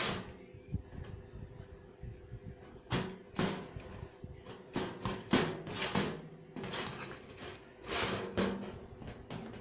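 Scattered metal clicks and knocks of a folding multitool being handled, its tools being pried out and folded, over a faint steady hum.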